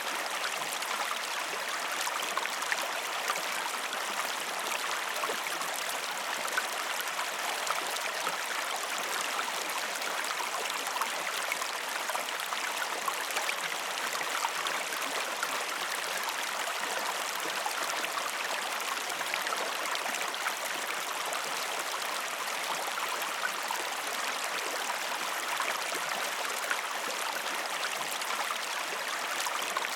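Waterfall water rushing steadily, with many small splashes and drips over the continuous wash.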